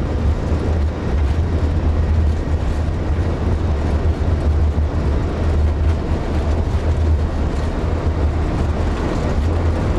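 Steady flight-deck noise of an Airbus A330: a strong low hum with an even hiss over it, holding level with no change in pitch.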